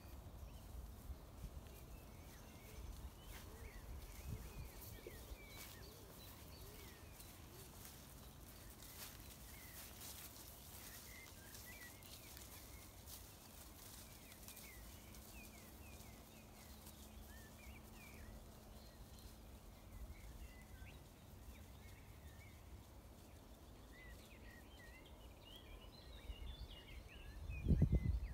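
Faint open-air pasture ambience: small birds chirping in the background over a low rumble of wind on the microphone, with a few louder low rumbles near the end.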